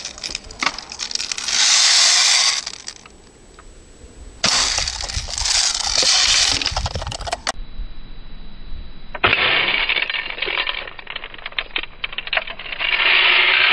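Daisy Red Ryder spring-powered BB gun firing at plastic Easter eggs in snow. Sharp clicks and cracks come as the eggs are hit and shatter, amid several loud bursts of hissing noise a second or more long.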